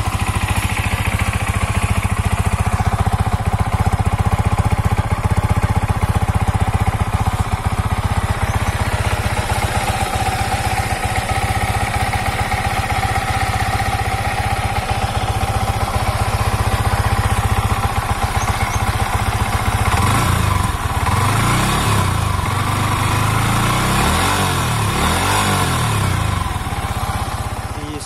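Yamaha MT-15 BS6's 155 cc single-cylinder engine running through its stock exhaust, idling steadily just after a cold start. From about two-thirds of the way in it is revved several times, the note rising and falling with each blip.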